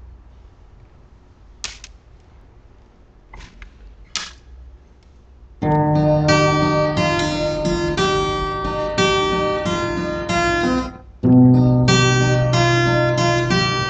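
A few faint knocks over low room noise, then about five and a half seconds in an acoustic guitar starts playing chords, ringing on with changes every half second or so. There is a brief break about eleven seconds in before the playing resumes.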